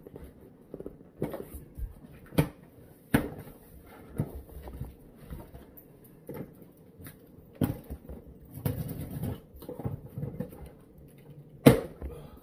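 Unboxing handling noise: a scattered series of sharp knocks and thuds, the loudest near the end, with a stretch of rustling a little after the middle, as the exercise machine's box and packaging are handled.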